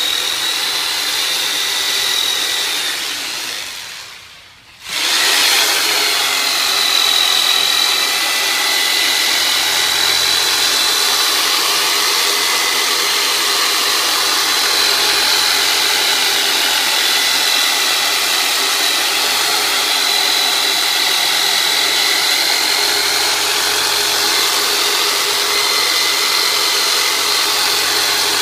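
Percussion massager made from a converted Black & Decker saw, its electric motor running with a steady high whine. It winds down and stops about four seconds in, then starts again a second later and runs on steadily.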